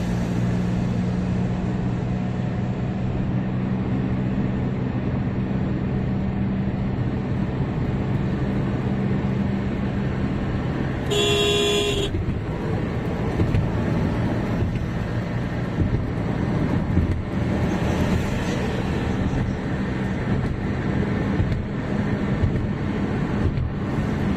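Steady road and engine noise of a car driving at highway speed, heard from inside the cabin. About eleven seconds in, a vehicle horn sounds once for about a second.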